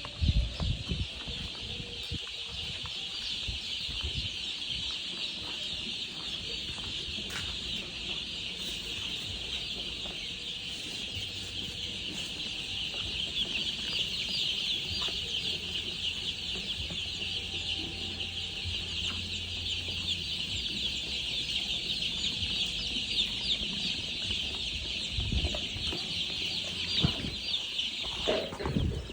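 Many baby chicks peeping continuously in a dense chorus, with a few low thumps near the start and again near the end.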